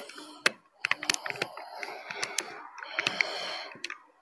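Irregular clicking taps of someone typing on a phone, several a second, over a faint background murmur.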